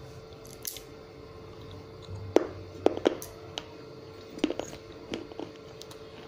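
Chewing pieces of broken baked-clay diya (small oil lamp), a run of sharp crunches with several close together from about two seconds in, over a faint steady hum.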